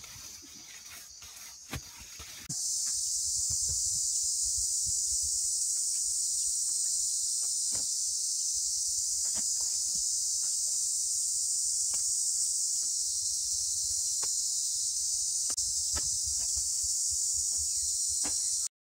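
Dense chorus of insects, a steady high-pitched drone that comes in abruptly about two and a half seconds in and cuts off just before the end, with faint scattered clicks beneath it. Before the drone, soft scraping and clicks of hands digging in soil.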